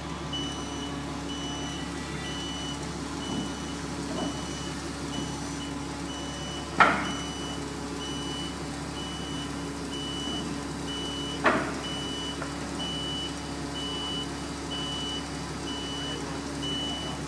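A vehicle's reversing alarm beeping steadily, about one and a half high beeps a second, over a running engine. Two sharp metallic clanks come about seven and eleven and a half seconds in, typical of heavy equipment being moved or set down.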